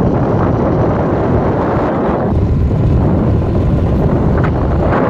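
Honda Activa scooter in motion on a paved road: steady wind buffeting the microphone over the scooter's running engine and tyre noise.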